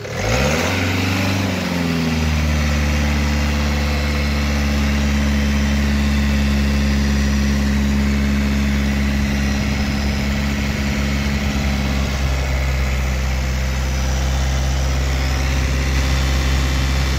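Peugeot Boxer's diesel engine, running with its newly fitted fuel filter: it revs up briefly at the start and drops back, then settles into a steady idle, a sign the filter change and priming went well and the engine runs.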